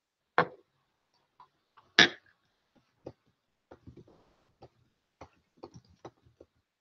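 Two loud, short knocks about a second and a half apart, then a scattered run of light clicks and taps, several a second, irregularly spaced.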